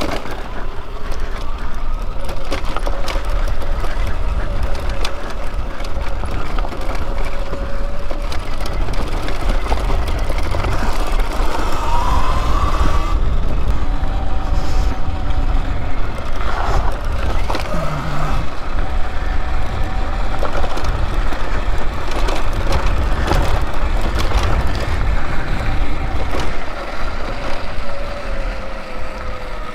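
Electric dirt bike being ridden on a rough dirt trail: a faint motor whine that rises and falls with speed, under a heavy wind rumble on the microphone, with scattered knocks from the bumpy ground.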